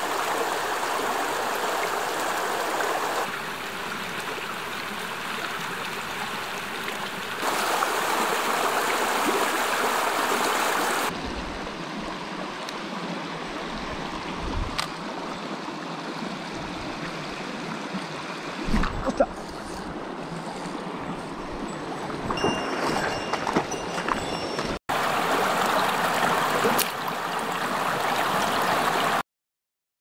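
Mountain stream water flowing over rocks, heard in several clips cut together, some louder than others. A few faint clicks and knocks come in the middle, and the sound cuts out to silence near the end.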